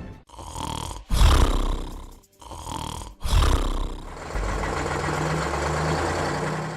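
Two deep animal roars, one about a second in and one about three seconds in, each dying away. Then a steady low rumble for the last couple of seconds.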